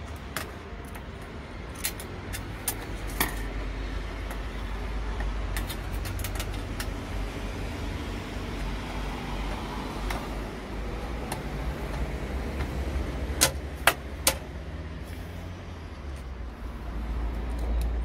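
Scattered sharp plastic and metal clicks and taps as a sandwich toaster's thermostat switch and housing are fitted back together by hand, with three loud clicks in quick succession about two-thirds of the way through. A steady low hum runs underneath.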